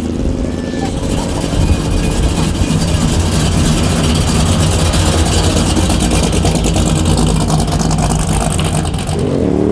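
Loud, steady engine rumble of classic American cars, among them a custom 1956 Chevrolet two-door sedan, driving slowly away past the camera. Near the end an engine revs up, rising in pitch.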